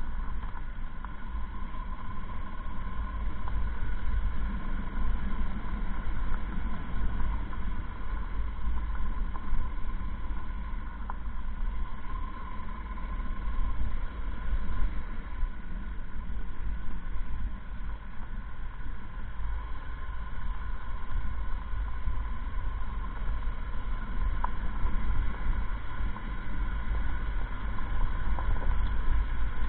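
Motorcycle engine running steadily at an even cruising pace, with low wind rumble on the microphone.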